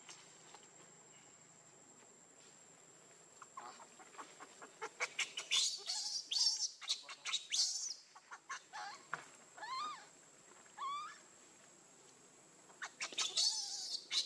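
Infant macaque crying: a run of shrill, squealing cries starting a few seconds in, quick and overlapping at first, then a few separate rising-and-falling cries, a short pause, and another burst near the end. The cries of a hungry baby monkey wanting milk.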